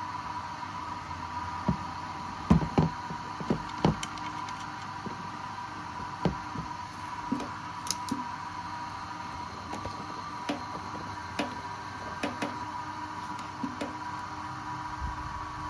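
Irregular knocks and clicks, loudest in a cluster a few seconds in, over a steady hum with a thin high whine.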